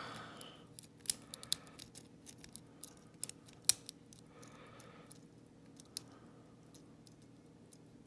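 Hook pick and tension wrench working the pins of a New-Set 90mm brass block padlock, single pin picking: scattered small metallic clicks and ticks, the sharpest about three and a half seconds in.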